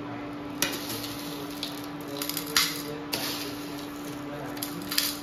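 Dry muesli flakes rattling and rustling as they are shaken out of a clear jar into a bowl, in several short pours with small crackly hits, over a steady low hum.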